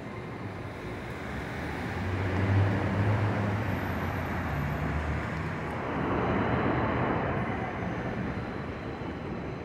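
Subway train running on the elevated steel structure, a steady rumble that swells about two seconds in and again around six seconds in.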